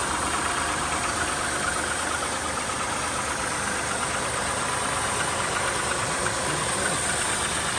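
A transverse V6 car engine idling steadily, just fitted with six new spark plugs and new plug cables in place of worn plugs with too wide a gap, and running pretty good now.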